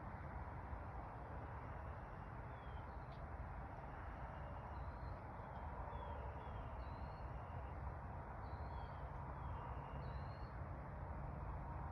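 Short, faint chirps from small birds, some rising and some falling, repeated a dozen or so times over a steady background rumble and hiss.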